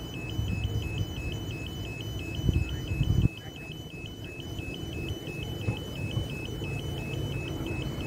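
Railway level crossing warning alarm sounding, an electronic two-tone signal switching back and forth about twice a second, over a low rumble as the Tilt Train approaches the crossing.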